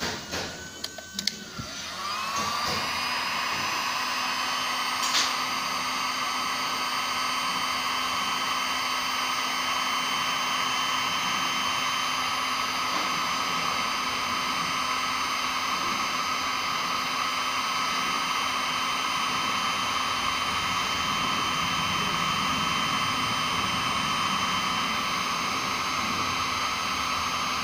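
A few light metal clinks, then a handheld heat gun switches on about two seconds in. It spins up to a steady whine over a rush of blown air and runs on evenly, heating the stuck regulator adapter fitting. One short click sounds about five seconds in.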